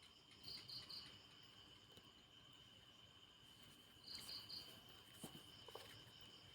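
Night insects: a faint, steady high-pitched insect drone, with a cricket giving two quick three-pulse chirps, one about half a second in and one about four seconds in. A few faint clicks come a little after five seconds in.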